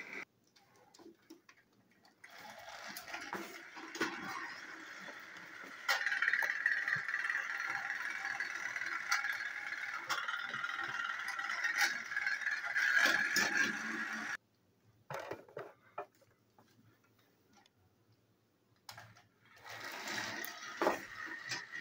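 Battery-powered TrackMaster toy train engines running on plastic track: small electric motors whirring with gear rattle. The whir is strongest through the middle, drops out for several seconds apart from a few clicks, and starts again near the end.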